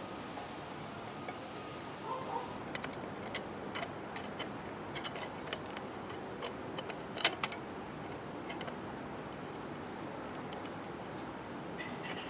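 Light, sharp clicks and taps of small glass pieces being handled and set together for gluing. The clicks come in an uneven cluster from about two seconds in to about eight, the sharpest one near seven seconds, over a faint steady hiss.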